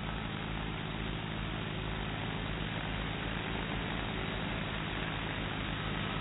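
DJI Phantom 2 quadcopter's propellers hovering close overhead: a steady low hum under a rushing whir, growing slightly louder as it goes.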